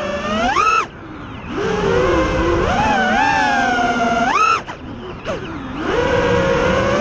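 Onboard sound of an FPV quadcopter's XNOVA RS2206 2500kv brushless motors and propellers: a whine whose pitch rises and falls with the throttle. Twice, about a second in and again near five seconds, it sweeps up sharply and then drops away to a low, quieter hum before climbing back.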